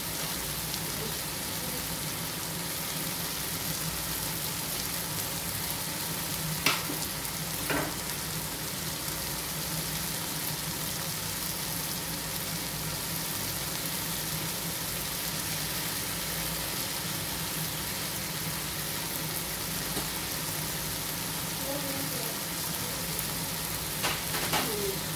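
Chicken pieces sautéing with tomato and onion in oil in an aluminium pot, a steady sizzle throughout. Two sharp clicks come about seven seconds in and a few more near the end.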